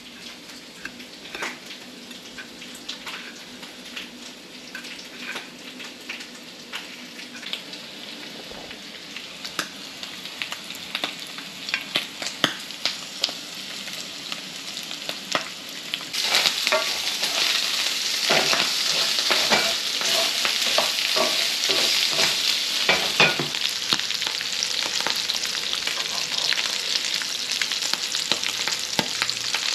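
Doritos-crumb-breaded crappie fillets frying in hot oil in a skillet: crackling and popping at first, then a loud, steady sizzle from about halfway through.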